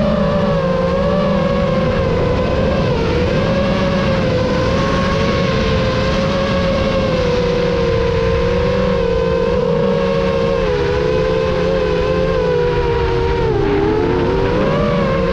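FPV quadcopter's motors and propellers whining in flight, heard through the onboard camera: a steady buzzing whine whose pitch wavers up and down with the throttle, over a low rumble of wind.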